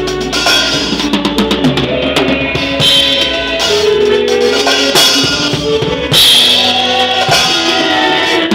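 Drum kit played in live band music: a quick run of drum strokes in the first second or two, steady kick and snare hits, and a cymbal crash about six seconds in, over held notes from other instruments.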